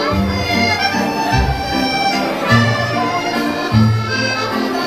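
Accordion-led Scottish dance music with a steady bass beat, played for a ceilidh dance.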